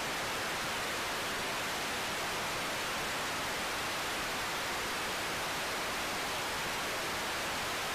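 Steady, even hiss of static noise, with no tone or rhythm in it.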